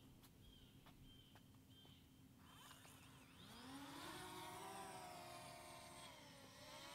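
A faint motor engine comes up about two and a half seconds in. Its pitch rises as it speeds up, then holds fairly steady with a slight dip near the end.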